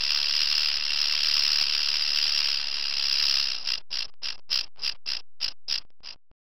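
Rattlesnake's tail rattle buzzing: a steady high buzz that breaks up, a little past halfway, into short separate rattles about three or four a second before stopping. It is the snake's warning rattle.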